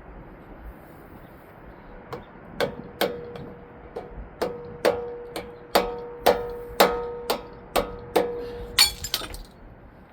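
Hammer blows on steel, about a dozen at roughly half-second spacing, each leaving a ringing metallic note, as a forklift carriage roller is driven into place. A quick flurry of lighter metal clinks follows near the end.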